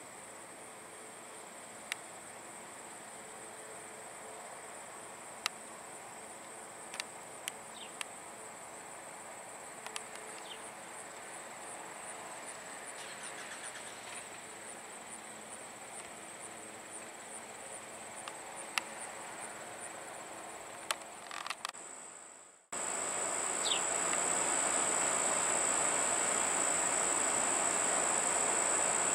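Insects buzzing at one steady high pitch over an even background hiss, with a few sharp clicks. The sound drops out about 22 seconds in and comes back louder, the insect buzz stronger.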